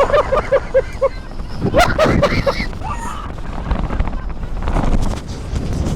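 Gale-force wind buffeting the microphone with a loud, continuous low rumble. A person's voice breaks through with a run of short, quickly repeated cries in the first second and a few more about two seconds in.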